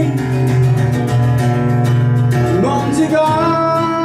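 Live acoustic guitar strumming a ballad accompaniment, with a male voice sliding up into the next sung line about two and a half seconds in.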